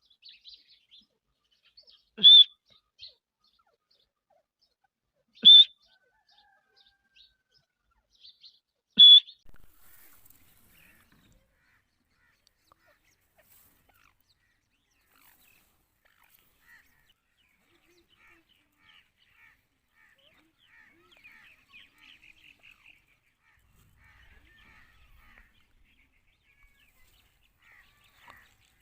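Grey francolin calling: three loud, short, high-pitched calls about three seconds apart, followed later by faint chirping.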